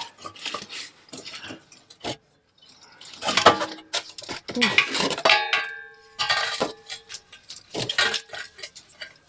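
Metal clanking and rattling as the old steel exhaust pipe is worked free and handled, a series of sharp knocks with one clang about five seconds in that rings on briefly.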